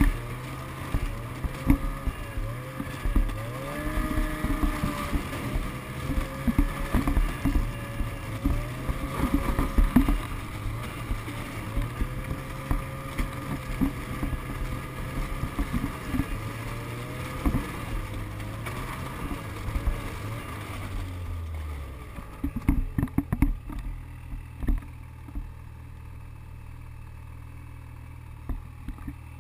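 Snowmobile engine running at low speed, its pitch rising and falling with the throttle, with frequent knocks and rattles as it rolls over the bridge's planked deck. About 22 seconds in the engine settles to a steady idle, with a short burst of clattering just after.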